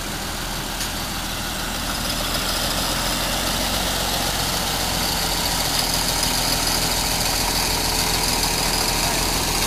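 Engines of slow-moving vehicles running steadily: a large farm tractor towing a trailer passes close by while a 1952 Fordson E83W pickup with a Ford 100E side-valve four-cylinder engine approaches. The sound grows gradually louder.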